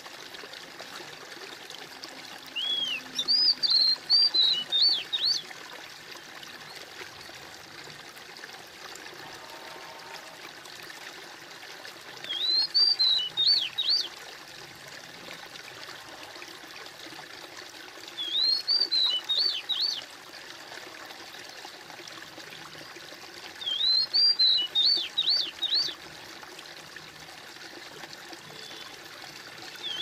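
An oriental magpie-robin (kacer) sings a short phrase of quick, high, arching notes, repeated every five to six seconds. Underneath is a steady trickle of running water.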